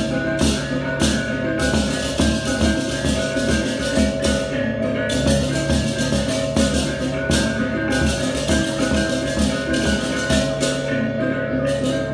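Balinese baleganjur gamelan playing: ringing gongs and tuned kettle gongs over a driving drum pulse, with clashing cymbals that break off briefly several times.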